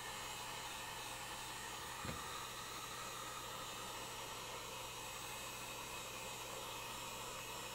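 Heat gun blowing a steady rush of hot air, warming a 3D print to soften its supports before they are pulled out. A light knock about two seconds in.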